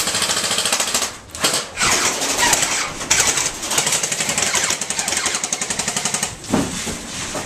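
Airsoft electric rifle firing on full auto: a rapid, even rattle of shots in several long bursts, the longest about three seconds, stopping about six seconds in.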